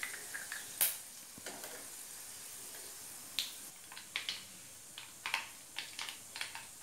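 Whole cumin, mustard and coriander seeds spluttering in hot oil in a kadhai: a faint sizzle with scattered sharp pops and crackles, coming more often in the second half. This is the tempering (tadka) stage, the seeds crackling as they fry.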